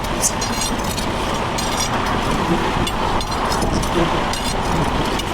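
Steady rushing noise of heavy interstate traffic passing close by, with short high clicks and rattles every second or so.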